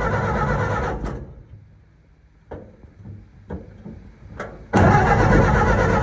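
Engine being cranked over by its starter with the choke on, turning but not firing. The cranking stops about a second in, a few light clicks follow, and it starts cranking again just before the end, still without catching.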